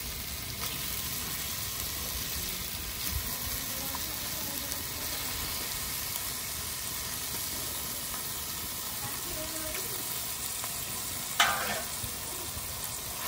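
Masala frying with a steady sizzle in a kadai as raw chicken gizzards and livers are tipped in on top of it; a single sharp knock about eleven seconds in.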